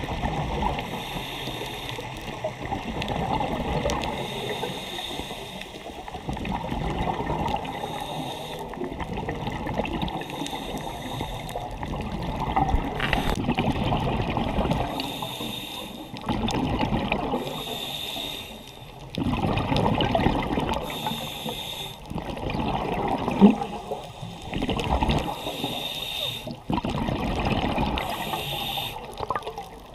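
A scuba diver breathing through a regulator, recorded underwater: bubbling rumble from the exhaled bubbles, alternating every few seconds with a short hiss from each breath drawn in.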